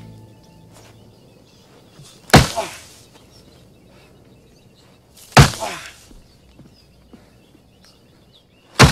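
Three heavy thwacks about three seconds apart: a fighter's bare limb striking a palm tree trunk, each hit loud and sudden with a short ringing tail.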